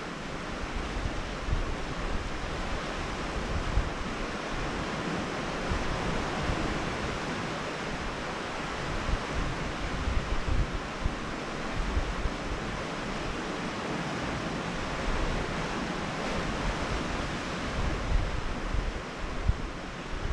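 Steady wash of sea surf on a rocky shore, with wind buffeting the microphone in irregular gusts.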